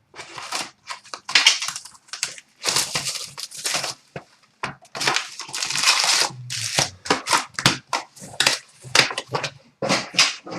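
A trading card box and its wrapping being torn open, with repeated short rips and crinkling of plastic wrap, foil and cardboard.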